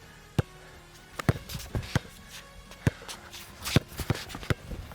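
A basketball bouncing and sneakers landing on the court during play: irregular sharp thuds, a few in quick succession, over faint background music.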